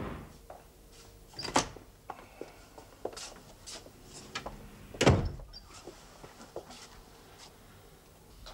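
Sharp knocks and clicks at a wooden room door, the loudest about five seconds in, with lighter ticks between.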